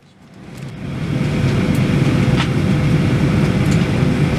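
Steady low cabin noise of a parked Boeing 737-800 during boarding, fading in over about the first second, with a thin steady whine running through it. A single click about two and a half seconds in.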